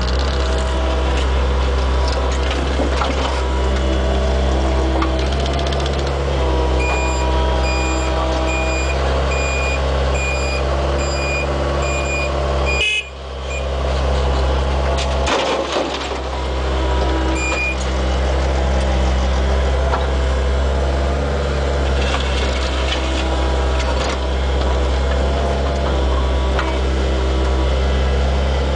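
Mini excavator's diesel engine running steadily, heard from inside its cab. For several seconds there is a reversing beeper at about one and a half beeps a second, with a single beep again a few seconds later. The sound cuts out briefly near the middle.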